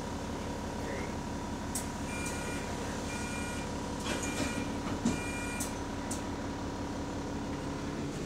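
Bus engine and running gear heard from inside the passenger deck, steady, with scattered ticks and short rattles and one knock about five seconds in. The uploader puts the ticking down to a loose exhaust.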